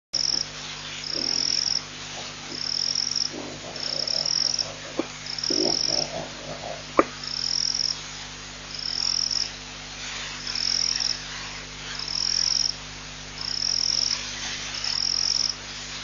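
Frogs calling at night: a high-pitched call repeating about every one and a half seconds over scattered lower croaks, with a faint steady low hum underneath. A single sharp click about seven seconds in is the loudest moment.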